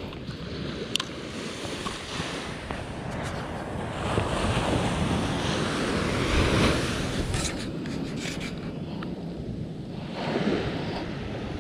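Ocean surf washing onto a sandy beach, with wind buffeting the microphone; the wash swells louder for a few seconds in the middle. A few sharp clicks stand out.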